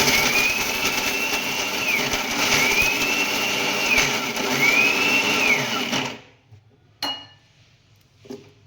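Small kitchen mixer grinder running, coarsely grinding gathiya (fried chickpea-flour snack) into crumbs; the motor's whine rises and drops back about every two seconds as the load shifts. It stops about six seconds in, followed by one short knock.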